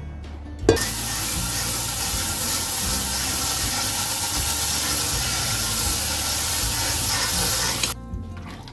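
Tap water running in a steady stream onto boiled rice vermicelli in a stainless steel colander in a sink, rinsing the noodles to cool them. It starts suddenly about a second in, just after a knock, and stops suddenly near the end.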